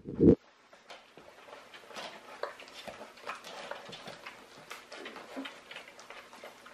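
A litter of Great Dane puppies eating raw ground beef: many small smacking, licking and chewing clicks, scattered irregularly. A brief low thump comes right at the start.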